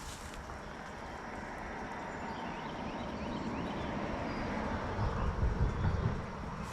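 Steady rush of flowing creek water, with low rumbling bumps about five seconds in.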